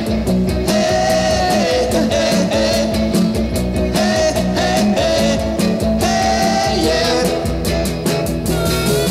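Rock and roll music with a sung melody over a steady drum beat.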